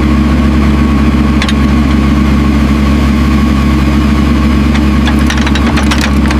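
A heavy machine's engine idling steadily and loudly at an unchanging pitch.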